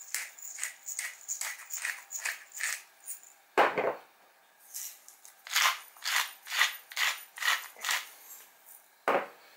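A pepper mill turned over a bowl in a run of quick grinding strokes, about three a second, then a knock as something is set down on the wooden table. After that a salt shaker is shaken in a series of rattling strokes, about two a second, and another knock near the end.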